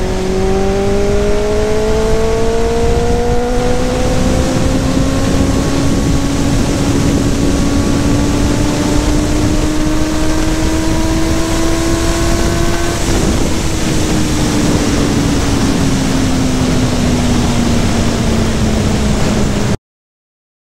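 Benelli motorcycle engine pulling through one gear, its note climbing slowly for about thirteen seconds, then easing off and falling, under heavy wind rush on the microphone. The sound cuts off suddenly near the end.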